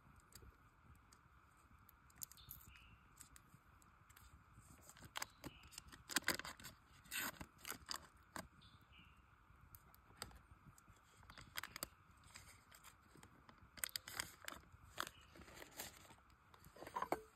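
Faint campfire crackling: irregular snaps and pops over a steady low hiss while food cooks on the fire, with the pops bunching in two spells.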